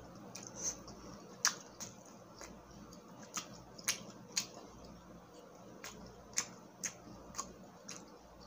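Close-miked chewing of a mouthful of butter garlic shrimp: irregular sharp wet clicks and smacks of the mouth, with a short lull about halfway.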